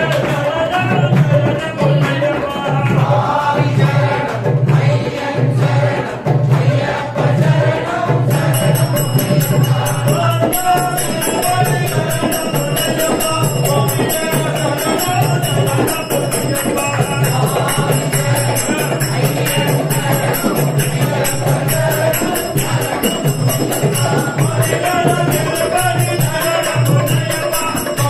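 Tamil Ayyappan devotional bhajan: chanted singing over a steady drum beat with tambourine-like jingling percussion. A rapid, bright jingling joins about eight seconds in.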